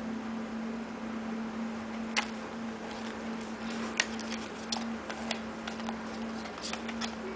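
Scattered light clicks and taps from items being handled, two sharper ones about two and four seconds in, over a steady low hum.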